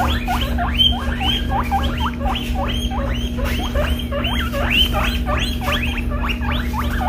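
Guinea pigs wheeking over and over from inside their travel carriers: a fast run of short rising squeals, about three a second, over a steady low hum. The calling is a sign of their displeasure at being shut in for the vet trip.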